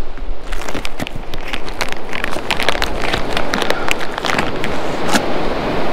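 Rummaging in a bait box and handling a plastic-wrapped frozen bait close to the microphone: a run of rustles and sharp clicks over a steady low rumble.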